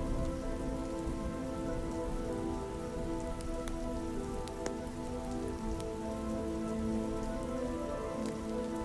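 Steady soft rain with a few sharp ticks, under held sustained tones of an ambient music pad.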